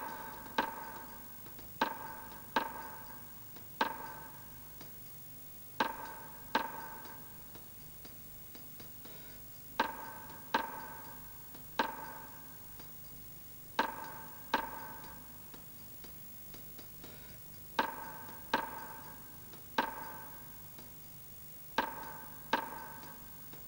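Sparse percussive film-score music: sharp struck notes that each ring briefly, played in a repeating three-hit figure that comes round about every four seconds.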